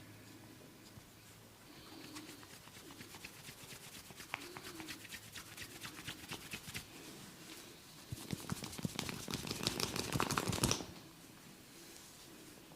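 Hands massaging a head: rapid scratchy rubbing of fingers against hair and scalp. It begins a couple of seconds in, grows louder and faster, then stops abruptly near the end.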